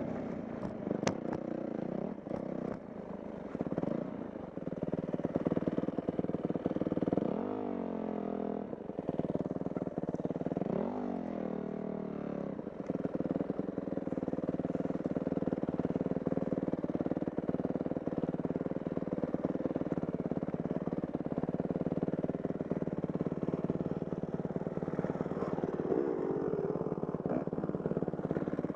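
Dirt bike engine running, revving up and back down twice about a third of the way in, then running on at a steady pitch.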